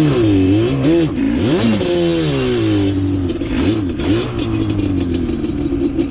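Engine of the utility vehicle doing the pushing, revving up and down several times, then settling to a steadier run, as it pushes a stalled, out-of-gas ATV along.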